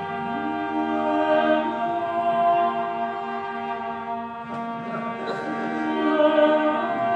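Cello playing long, slow bowed notes, with some notes sliding up or down in pitch.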